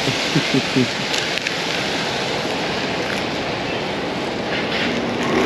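Steady hiss of city street noise with traffic going by, and a few brief voice sounds in the first second.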